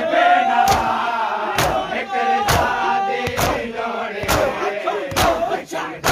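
A crowd of men chanting a noha in unison, with open hands slapping bare chests together in matam about once a second, keeping time with the chant.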